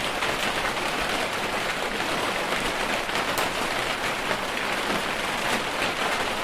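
Steady rain falling: a dense, even hiss of drops, with many single drops ticking sharply on nearby surfaces.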